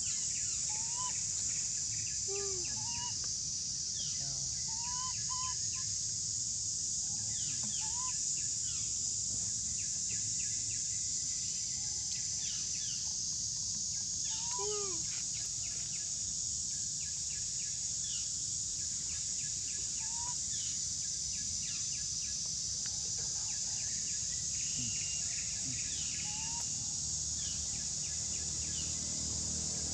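Steady high-pitched insect drone, like cicadas in tropical forest, with short chirping animal calls every second or two.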